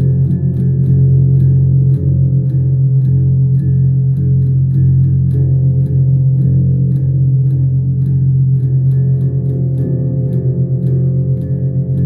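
Guitar playing a slow instrumental passage: a low note drones steadily under repeated plucked notes.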